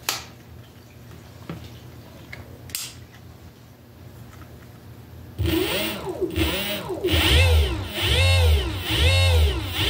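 Vevor 48V 2000W brushless motor spinning up and down on the bench as the twist throttle is blipped: a whine that rises and falls in pitch over and over, about every two-thirds of a second, starting about halfway through. Before it, only a few light clicks.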